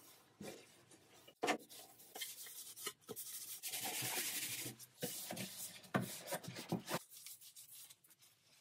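Cloth wiping and scrubbing over old varnished wood, in short strokes with small knocks, and a longer, steadier scrub in the middle.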